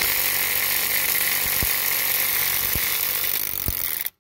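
Ryobi P235 brushed 18V impact driver hammering in reverse on a lug nut torqued to 100 foot-pounds, breaking it loose. It runs steadily for about four seconds and cuts off suddenly.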